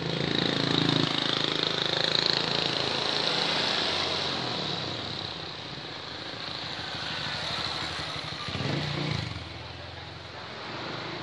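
Road traffic at a level crossing, mostly motorcycles passing. A motorcycle engine swells near the start and again a little before the end.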